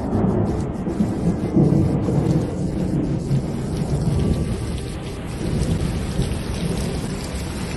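Heavy rainstorm: rain pouring down with a deep continuous rumble, loudest a second or two in.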